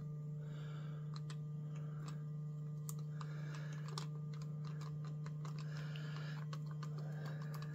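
Faint, irregular small clicks and light rubbing as the blade chuck of a reciprocating saw is handled and worked by hand during disassembly, over a steady low background hum.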